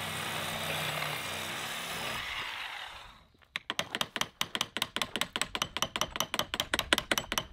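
A corded power tool runs steadily for about three seconds and then stops. Then a long-handled ratchet wrench turning a railroad-tie bolt's nut clicks rapidly and evenly, about five clicks a second.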